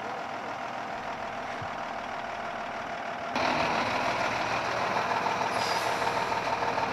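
Steady vehicle engine and road noise, stepping up abruptly louder a little over three seconds in.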